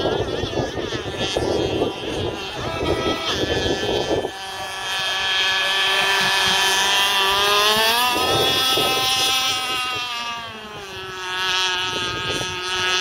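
Gas RC race boat with a Redline full-mod Zenoah two-stroke engine running flat out, a high, steady engine note whose pitch swings up and then back down in the second half. A rough low noise under it stops about four seconds in.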